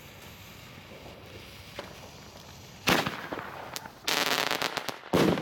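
Toschpyro 30 mm Bombenrohr (small firework shell tube) firing: a sharp bang about three seconds in as the shell is launched, a second of dense crackling as it breaks into stars, and another loud bang near the end.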